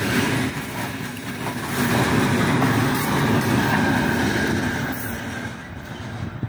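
Freight train's open gondola wagons rolling past at speed, wheels rumbling on the rails. The noise fades over the last second or so as the final wagon goes by and draws away.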